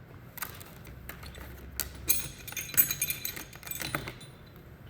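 Small metal rivet parts clinking and jingling as they are handled: a couple of sharp clicks, then a bout of light metallic jingling from about two seconds in.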